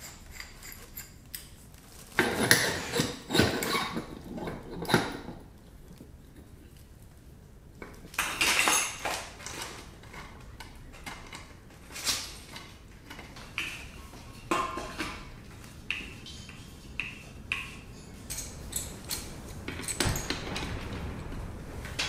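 Metal parts clinking and knocking irregularly as a steel burner tube is fitted into the side port of a small propane metal-melting furnace and its hose fitting is tightened with a wrench; a few of the knocks ring briefly.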